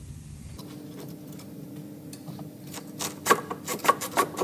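Steel front lower suspension arm of a Ford C-Max being pulled free of its mounts by hand, clinking and knocking against the subframe, several sharp metallic clinks in quick succession from about three seconds in, over a faint steady hum.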